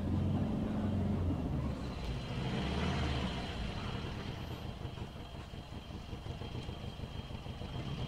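Car engine and road noise heard from inside a slowly moving vehicle. A low engine hum is strongest in the first few seconds, then eases off and grows quieter as the car slows.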